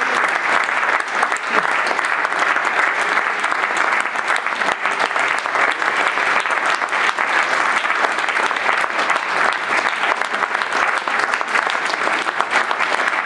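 A theatre audience applauding steadily: sustained, dense clapping from many hands.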